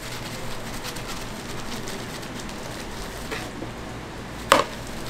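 Steady crackling sizzle of oil on a hotteok griddle, with one sharp clink of a metal scoop about four and a half seconds in.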